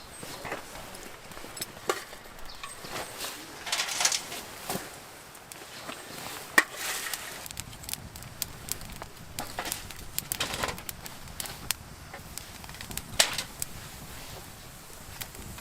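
Wood fire crackling in a homemade fire pit, with irregular sharp pops and snaps over a soft hiss as the wood burns down toward embers.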